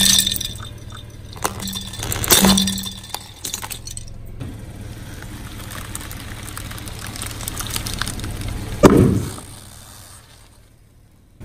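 A car tyre crushing plastic Rubik's cubes: sharp cracks as they break apart, with pieces clicking and clattering on concrete, twice in the first three seconds. About nine seconds in, a ball of foam beads is squashed flat under the tyre with one loud, duller crunch. A car engine hums low underneath.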